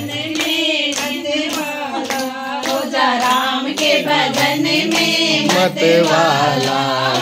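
A group of women singing a devotional bhajan to Ram in unison, unaccompanied by instruments, keeping time with hand claps about twice a second.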